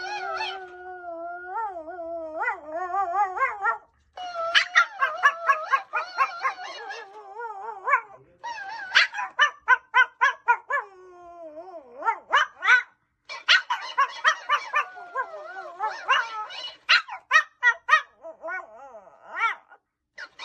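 Pomeranian puppy howling: one long wavering howl for the first four seconds or so, then runs of short yips and barks broken by brief pauses.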